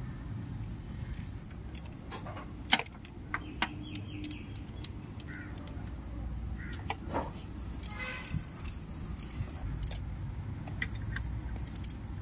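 Hand tools clinking and clicking against metal engine parts while the timing-belt tensioner is worked on, in short scattered taps, the sharpest about three seconds in. A low steady hum runs underneath.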